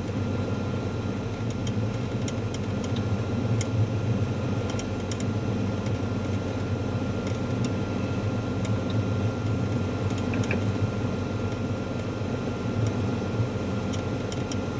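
Cirrus SR22's six-cylinder Continental IO-550 engine running steadily at low taxi power, with a few light clicks scattered over the drone.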